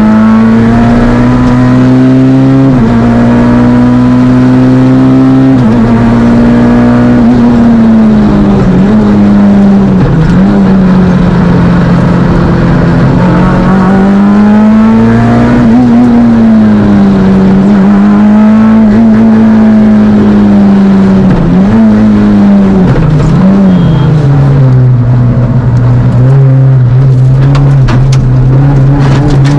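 Fiat Panda kit rally car's engine, heard from inside the car, driven hard: the revs climb in each gear and drop sharply at two upshifts in the first six seconds, then fall and pick up again several times through corners, running lower and steadier near the end.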